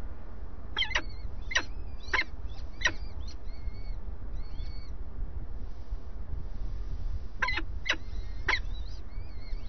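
Peregrine falcon chicks begging at feeding time in the nest box: thin, wavering high cheeps with short sharp calls, four in the first three seconds and three more near the end, over a steady low rumble.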